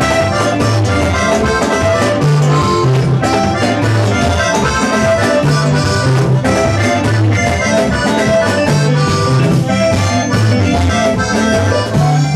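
Live gospel band playing: electric guitars, bass guitar, drums and keyboard, over a steady repeating bass line.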